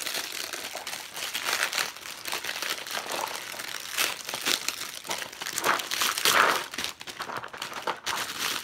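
Clear plastic wrapping around a small cardboard box crinkling as it is picked at and handled, an irregular run of crackles that grows a little louder about six seconds in.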